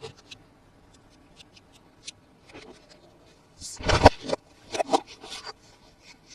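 Plastic toys and their packaging being handled: scattered small clicks and taps, then a louder scraping rustle about four seconds in, with a few shorter ones after.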